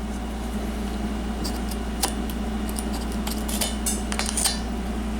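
Steady low mechanical hum with scattered light clicks and rattles of objects being handled, several of them in quick succession in the middle.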